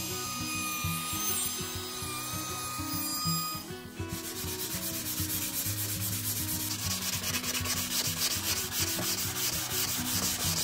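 A sanding sponge rubbed by hand over a wooden workpiece in quick back-and-forth strokes, starting about four seconds in, over background music.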